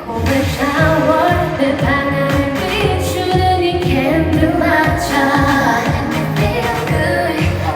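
Pop song with a female lead vocal over a full backing track with a steady beat.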